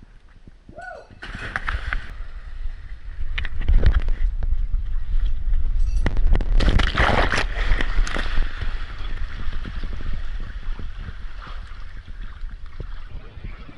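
Water sloshing and churning close to an action camera at the surface of a pool, over a heavy rumble of wind and handling noise on the microphone. There is a louder cluster of splashing about seven seconds in.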